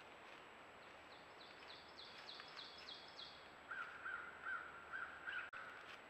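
Songbirds singing in the woods over a steady hiss: a quick run of about ten high repeated notes, then five louder, lower clear notes. The sound cuts off suddenly near the end.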